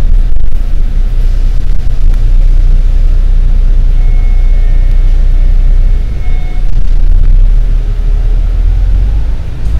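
Deep, steady engine rumble of a bus moving slowly, heard from inside the bus. A faint high whine sounds for a couple of seconds midway.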